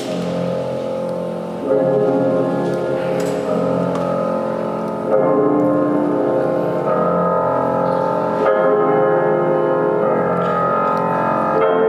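Classical-style free-skate program music with piano and sustained orchestral chords, changing chord about every three to four seconds, played over the rink's sound system.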